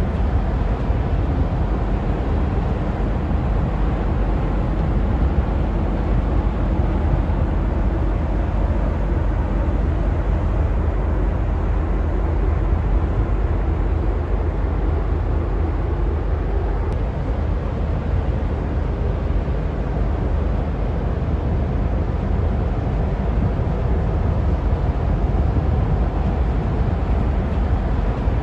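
Steady low rumble and rushing of a bulk cargo ship passing close by: its engine and the water churned by its hull and propeller, at an even level throughout.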